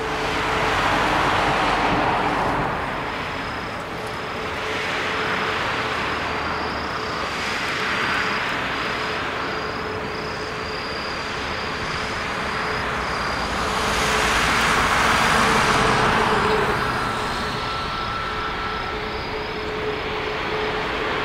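Boeing 737 MAX 8 taxiing with its CFM LEAP-1B jet engines at idle: a steady engine whine over a rushing noise that rises and falls in slow waves.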